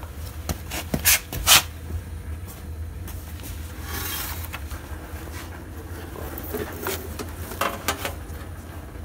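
Handling noise: two sharp knocks about a second and a half in, a short scraping rub near the middle, and a few lighter clicks near the end, over a steady low hum.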